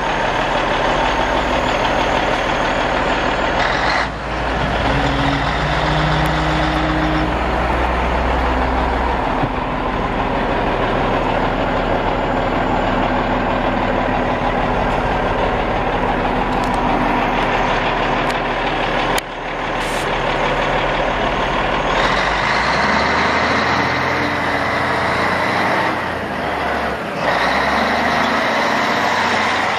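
Diesel engine of a 1985 CAT 980C wheel loader running loud and steady after a cold start, its low note shifting a couple of times.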